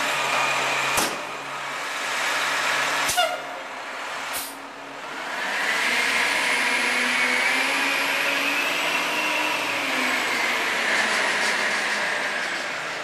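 Front-loader garbage truck's diesel engine idling, with three sharp knocks in the first few seconds. From about five seconds in the engine picks up as the truck pulls away, with a whine that rises and then falls over about five seconds.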